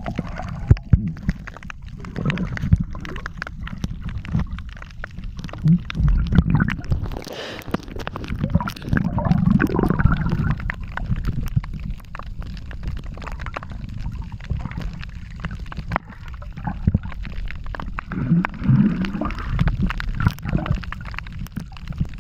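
Muffled underwater water noise: a low gurgling and sloshing rumble that swells and fades unevenly, with scattered sharp clicks.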